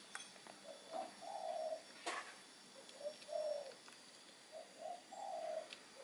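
A bird cooing in low, soft notes: three short phrases, each a brief note followed by a longer, drawn-out one.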